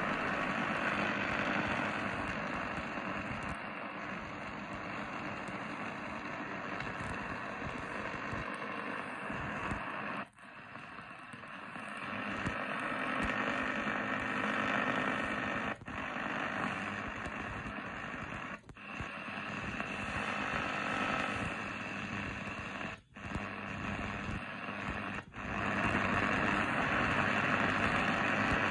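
Medium-wave (AM) static hissing from the speaker of an Eton Field BT Grundig Edition radio as it is tuned up the band. The hiss briefly cuts out five times, once for each tuning step.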